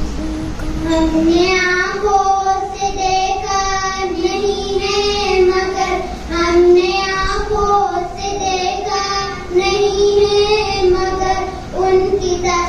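Young girls singing a naat, an Urdu devotional poem in praise of the Prophet, into a microphone, in long held melodic lines that begin about a second in.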